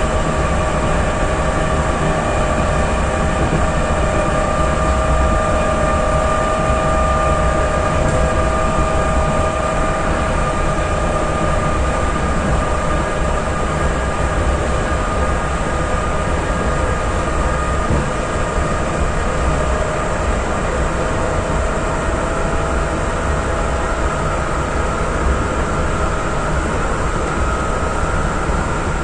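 EN57 electric multiple unit's motor car running at speed, heard from inside the carriage: a steady rumble of wheels on rail with the whine of the traction motors and gearing, its pitch edging up slightly near the end.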